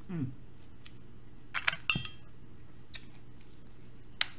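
A metal fork clinking against dishes: a quick cluster of sharp, ringing clinks about halfway through, then a single sharp click near the end.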